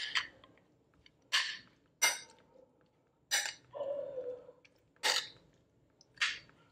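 Metal spoon scraping and clinking against a ceramic plate as salad is spooned onto it, about six short strokes roughly a second apart.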